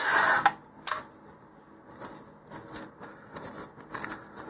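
Masking tape pulled off the roll with a short ripping sound at the start, then a sharp click about a second in and light scattered clicks and rustling as the strip is handled.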